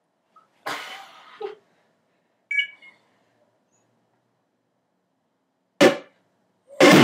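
A mostly quiet room broken by a few brief sounds: a short rustling burst about a second in, a brief high squeak, and a single sharp knock near the end. Loud music with guitar cuts in just before the end.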